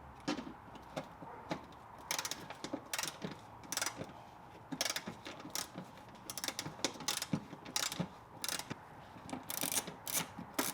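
Socket ratchet wrench with an 8 mm socket clicking in short runs of strokes as a fender bolt is backed out.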